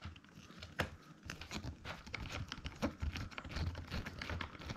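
Small screws being driven by hand into a plastic caravan blind frame with a stubby star-bit screwdriver: irregular light clicks, taps and scrapes of the bit, screws and handled plastic.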